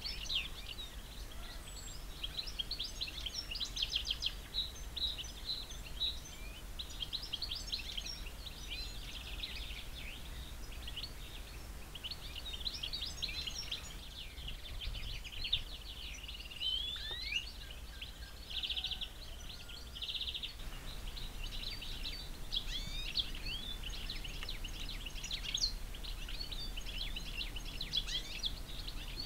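Small songbirds chirping and trilling all around in a busy, overlapping chorus, over a steady low background rumble.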